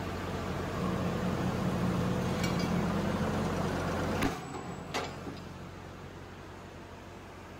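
Hydraulic press power unit running with a steady electric hum that grows louder for a few seconds. About four seconds in there is a sharp click, and the running sound drops to a quieter hum, with a second click a moment later.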